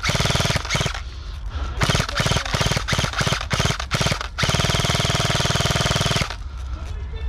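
Airsoft rifle firing on full auto, close by: several short bursts of rapid shots, then one long burst of about two seconds that stops abruptly near the end.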